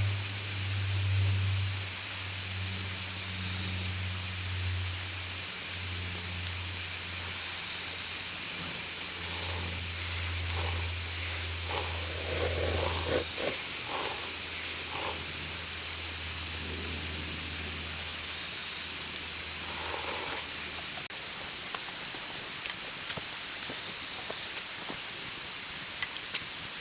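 Campfire crackling with scattered pops over a steady high-pitched whine. A low hum runs underneath and stops about three quarters of the way through.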